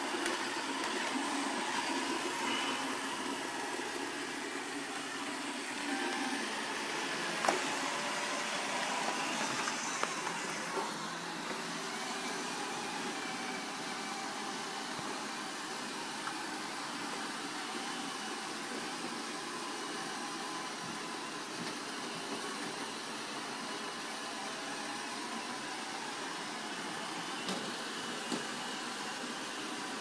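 Three iRobot Roomba robot vacuums running together on carpet: a steady whir of their motors and brushes that starts abruptly as the last one is switched on, with a single knock about seven seconds in.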